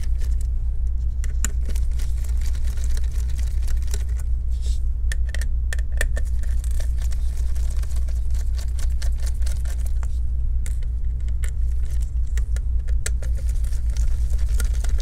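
Scattered small clicks and light scrapes of plastic and metal laptop parts being handled while a plastic cover is taken off over the heatsink, over a steady low hum.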